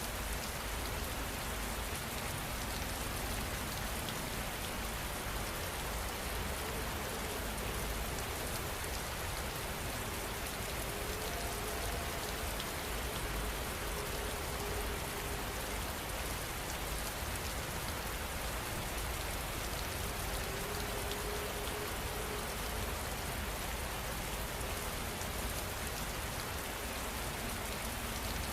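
Heavy rain falling steadily, an even, unbroken hiss of countless drops.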